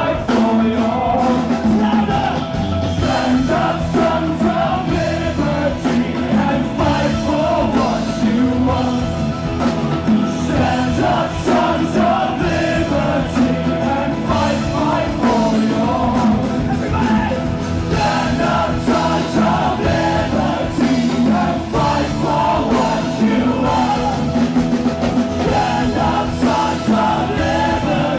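Live rock band playing loudly, with singing over the guitars and drums.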